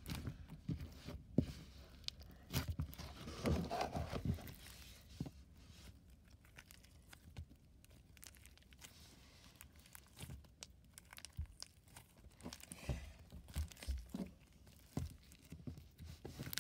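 Hands squishing, poking and stretching a thick, glossy white slime with blue beads mixed in: irregular sticky pops and crackles, busiest in the first few seconds and again near the end, sparser in the middle.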